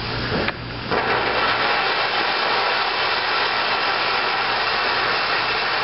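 Ground fountain firework burning: a steady hiss of spraying sparks, settling in after a brief dip about a second in.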